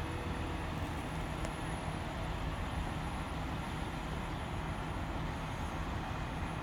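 Steady low rumble of a mobile crane's diesel engine running.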